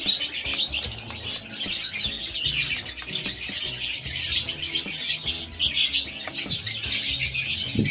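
Many small pet parrots chirping and chattering continuously in dense, overlapping high calls.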